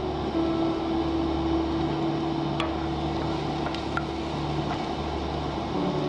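Onions frying in a pan on a propane camp stove: a steady hiss over a low hum, with a few light clicks from a wooden spoon stirring.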